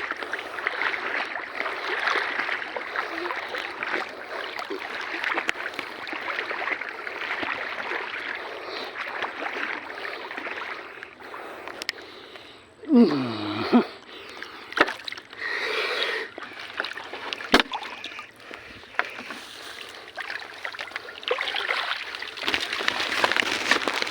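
Water sloshing and splashing in a steady rush. It drops away a little before halfway, leaving a short falling tone and a few knocks and clicks, then picks up again near the end.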